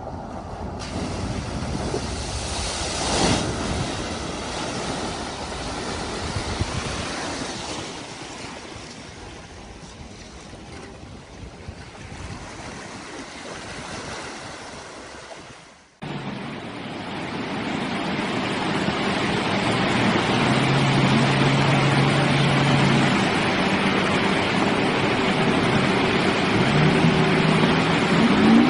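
Floodwater splashing and rushing around a car as it drives through a flooded ford, with wind on the microphone. About sixteen seconds in it cuts suddenly to surf and wind with the steady hum of pickup truck engines as they drive through shallow seawater.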